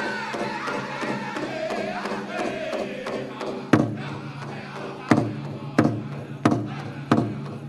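Powwow drum group singing a chicken dance song around the big drum, with high, wavering lead voices. From about four seconds in, hard single drum strikes land roughly every two-thirds of a second.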